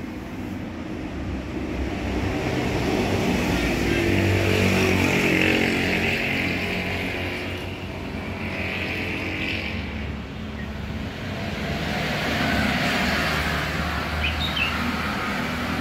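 Motor vehicle engine running, growing louder and fading twice, with a rising and falling engine note.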